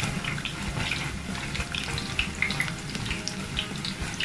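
Battered cauliflower florets deep-frying in hot oil in an aluminium pot: a steady sizzle full of small crackles and pops, while a slotted metal spoon stirs them. The pieces are nearly cooked.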